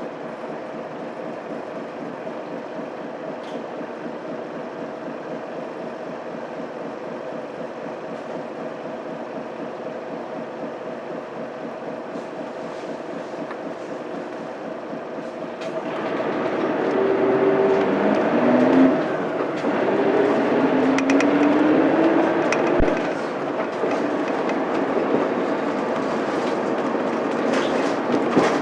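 Cabin sound of a Mitsubishi Fuso Aerostar city bus with its 6M70 12.9-litre inline-six diesel and five-speed manual gearbox: the engine runs steadily, then about 16 seconds in it gets louder and its pitch climbs twice with a short break between, the bus accelerating through a gear change.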